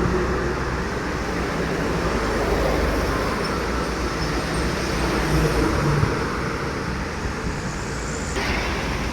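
Road traffic noise: vehicles driving past, a steady mix of engine and tyre noise with no horn sounding.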